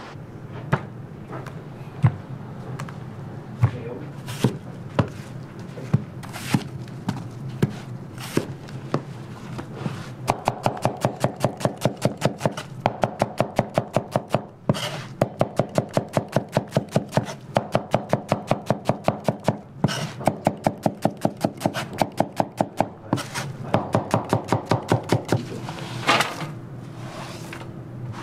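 Kitchen knife chopping on a cutting board. For about ten seconds come single, spaced cuts; then fast, steady chopping at about five strokes a second, broken by two short pauses, with a louder clatter near the end.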